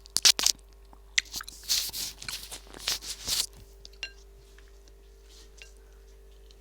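An orange handled close to the microphone for its sound: a few sharp snaps, then about two seconds of crackling, tearing bursts, then only faint small clicks.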